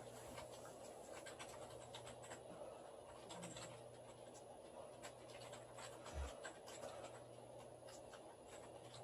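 Near silence: faint room hiss with light scattered crackles, and a soft low thump about six seconds in.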